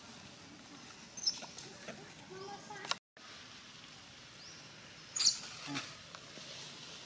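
Long-tailed macaques feeding on leaf litter: a few short squeaky calls and scattered clicks and rustles. The sound cuts out for a moment about three seconds in.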